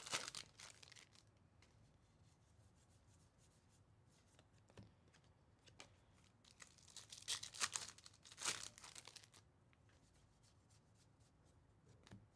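Foil trading-card pack wrappers crinkling and tearing open in two short spells: one in the first second and a longer one about seven to nine seconds in. A few faint taps of cards being handled fall in between.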